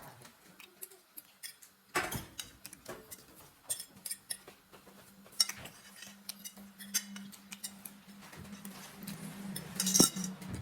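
Fork or spoon clinking and scraping against a plate in irregular short clicks, with a louder cluster of clinks near the end.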